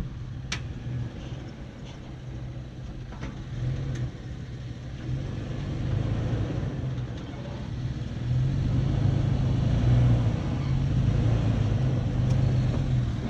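Toyota FJ Cruiser's 4.0-litre V6 running at low revs as it crawls down a rocky step, getting louder about two-thirds of the way through, with a few sharp clicks in the first seconds.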